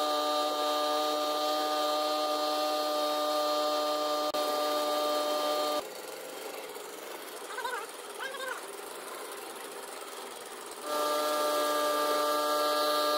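Speedboat outboard motor running at steady high revs, a constant droning whine. About six seconds in it gives way to a quieter low hum with a few short chirps, and the steady motor whine returns about eleven seconds in.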